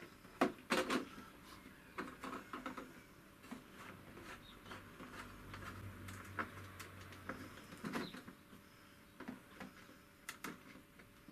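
Scattered light clicks and knocks of hands handling a model hydroplane's plastic hull and hatch, the loudest in the first second.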